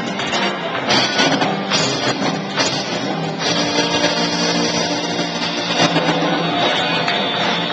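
Live rock band playing, with guitar and drum kit.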